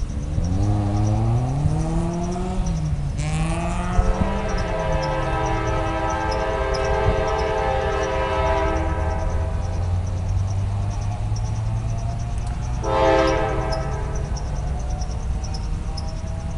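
Diesel freight locomotive sounding its air horn for the grade crossing: one long blast of about five seconds starting about three seconds in, then a short blast near thirteen seconds. Under it runs the low rumble of the engine, rising in pitch over the first few seconds, with the crossing signal bell ringing steadily.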